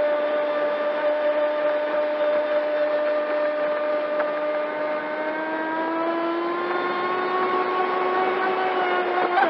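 Pro Boat Sonicwake 36-inch RC boat's brushless motor whining steadily on a 4S battery, heard from on board with water rushing along the hull. The whine climbs in pitch about six seconds in as the throttle comes up, then drops suddenly at the very end.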